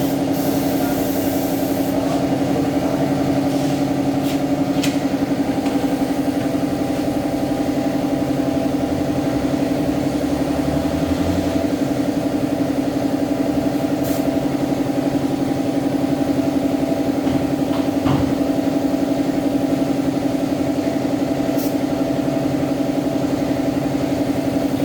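Steady mechanical drone of a motor-driven machine running without let-up: a strong low hum with a few steadier tones above it.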